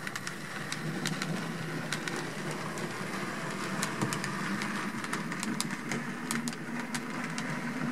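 HO-scale Mantua 2-6-0 Mogul model steam locomotive running slowly along the track. Its small electric motor and gearing give a steady whir, with light clicking of the wheels over the rails. The sound cuts off near the end as the locomotive stops.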